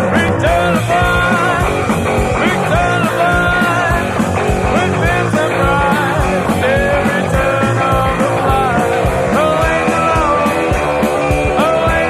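Rock music: a full band with a steady drum beat and a lead melody that slides up and down in pitch.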